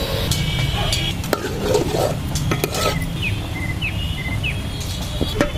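Metal ladle stirring, scraping and clinking against an aluminium pot of chicken curry, with a light sizzle, over a steady low rumble. Short high bird chirps come through several times in the middle.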